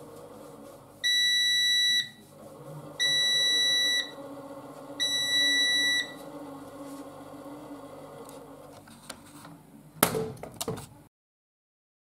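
Siemens Siwamat IQ 716 washing machine sounding its end-of-programme signal as the countdown reaches zero: three steady one-second beeps about two seconds apart. Under them is a low hum from the machine that stops a few seconds later. A few sharp clicks follow near the end.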